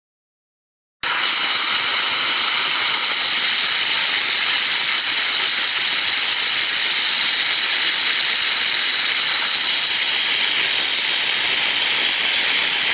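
Loud, steady, high-pitched hissing rush of fast-flowing white water over rocks, starting abruptly about a second in and cutting off suddenly near the end.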